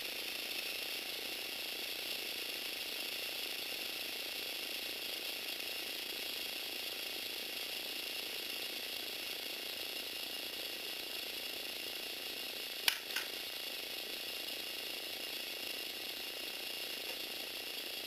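Lego Technic electric motor and its plastic gear train running steadily with a whirring, ratcheting whine as they drive the string-pulley arm, starting as it is switched on. About two-thirds of the way through come two sharp clicks a split second apart.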